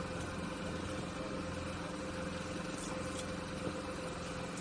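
Outboard motor idling steadily, a constant low hum with a held steady tone.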